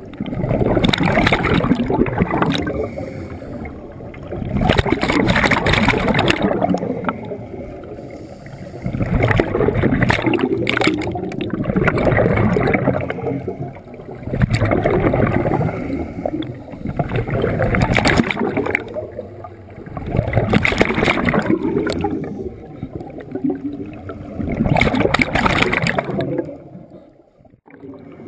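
Scuba regulator breathing underwater: surges of exhaled bubbles gurgling out of the regulator about every four seconds, with quieter gaps between breaths.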